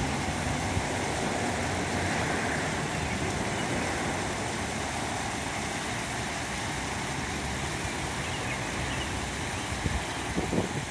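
Artificial rock waterfall cascading into a pond, giving a steady rushing splash of water. A few low thumps come near the end.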